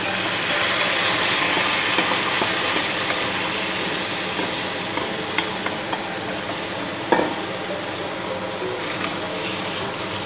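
Washed rice poured into a pot of hot olive oil, butter and toasted egg noodles, sizzling loudly as it goes in and being stirred with a wooden spoon; a sharp tap about seven seconds in.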